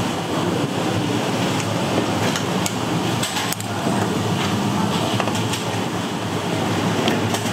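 Steady busy restaurant-kitchen din with a low hum, broken by a few short clacks and knocks.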